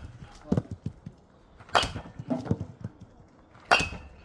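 Baseball bat striking a ball in batting practice: two sharp cracks about two seconds apart, the first near the middle, with softer knocks between them.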